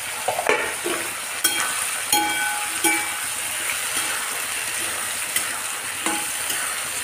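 Green peas and onions sizzling in mustard oil in a steel kadhai, with a steel spatula scraping and clicking against the pan as they are stirred. A few short ringing metal clinks come between about one and a half and three seconds in.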